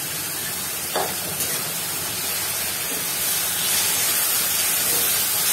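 Spiced onion-tomato masala sizzling steadily as it fries in a kadai while a spatula stirs it, with a brief clink about a second in. The sizzle grows a little louder after the midpoint.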